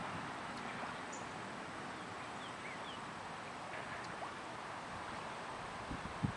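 Steady outdoor hiss with a few faint, short bird chirps around the middle, and a single low bump near the end.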